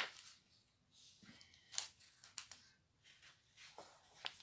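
Faint rustling and crinkling of clear plastic sleeves and paper as metal cutting dies are handled and swapped, with a few small sharp clicks.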